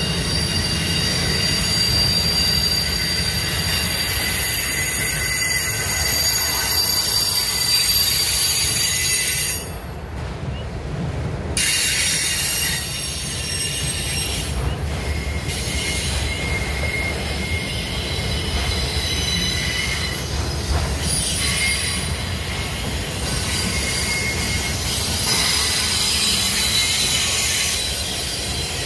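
Loaded autorack freight cars rolling past, their wheels squealing on the rails in several steady high tones over a low rumble. The squeal drops out for about two seconds roughly ten seconds in, then returns.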